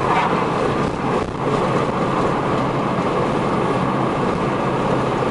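Steady road noise of a vehicle driving along, with an even rushing hiss and a low hum.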